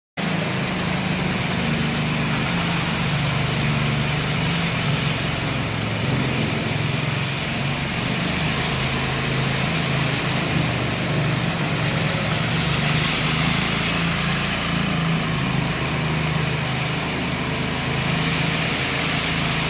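Walk-behind power trowel running steadily, its small engine humming without a break as the rotating blades float wet concrete.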